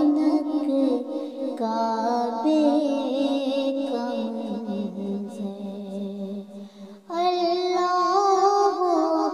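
A solo voice singing a hamd, a devotional hymn in praise of God, in long gliding phrases. The voice drops away briefly about seven seconds in, then starts the next phrase.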